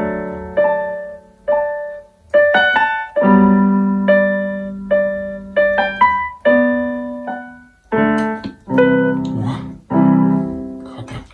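Portable electronic keyboard played in a piano voice: a slow melody of single notes over held low chords, each note fading away, with fuller chords struck in the last few seconds.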